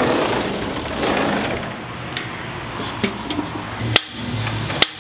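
A sliding patio door rolling open with a brief rush of noise, then handling of a Weber portable gas grill: a few sharp clicks and knocks, the loudest about four seconds in.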